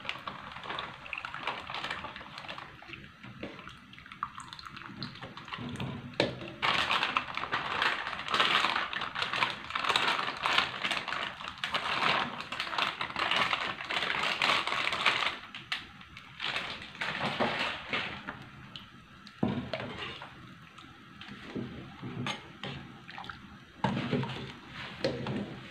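Coconut milk poured and then squeezed from a plastic bag into a steel pot of kolak, the liquid splashing and sloshing, loudest in a dense stretch in the middle. Later a metal ladle stirs the pot, with a few sharp clinks against the pot.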